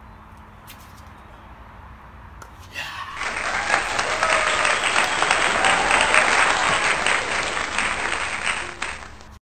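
A crowd cheering and applauding, added as a sound effect: it starts about three seconds in, stays loud and dense, and cuts off abruptly just before the end. Before it there is only faint background with a couple of light clicks.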